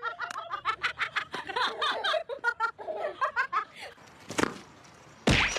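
A person laughing in a quick run of short bursts for about four seconds, then a sharp click, and near the end a loud thump.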